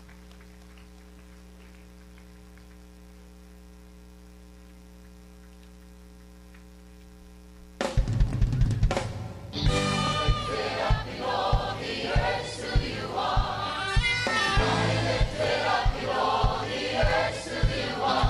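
A low steady hum. About eight seconds in, a band with a drum kit starts up suddenly on a steady beat, and a large choir comes in singing a gospel worship song a moment later.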